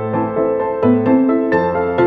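Instrumental background music: a melody of evenly paced notes, about two a second.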